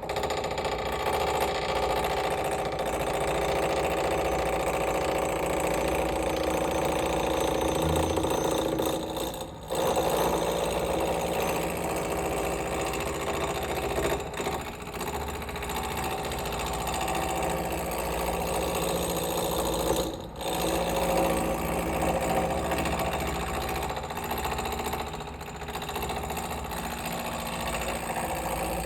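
Wood lathe spinning a square wooden blank while a roughing gouge chips off its corners: a continuous rapid chattering as the tool cuts the spinning edges, moving across and back along the piece. The cutting drops away briefly about ten and twenty seconds in.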